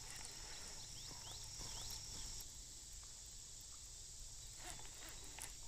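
Faint outdoor ambience: a steady high-pitched insect drone that stops a little over two seconds in, a few short rising chirps, and a low steady rumble underneath.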